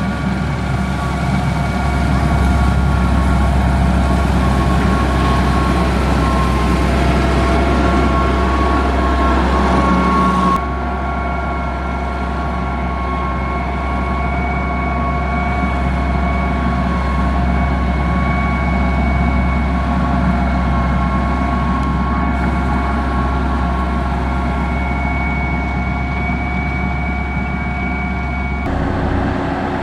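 Heavy diesel construction machinery running steadily, a low engine drone with a steady high whine over it. The sound changes abruptly about a third of the way in and again near the end.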